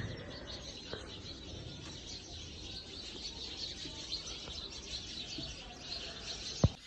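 Many small birds chirping and twittering steadily in the background, with a single sharp click near the end.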